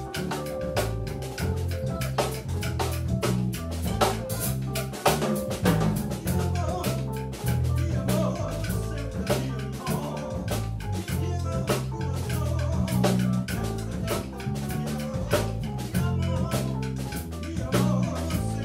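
Live Latin jazz band playing: a drum kit with frequent drum and cymbal hits over a bass line stepping from note to note, with keyboard.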